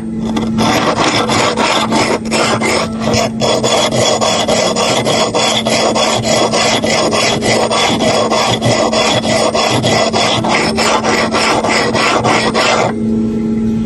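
Hair clipper blade being sharpened by hand on an oiled, gritted sharpening plate: rapid back-and-forth scraping strokes of the blade against the abrasive, starting about half a second in and stopping near the end.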